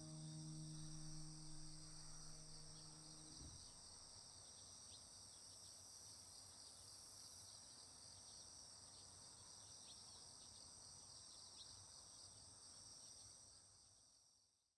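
Faint, steady chorus of crickets chirring, fading out at the very end. A held musical chord sounds over the first few seconds and stops about three and a half seconds in.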